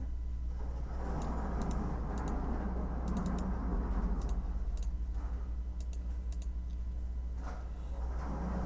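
Computer keyboard typing: irregular keystrokes in short clusters, some in quick runs of two or three, over a steady low hum and swells of rushing background noise.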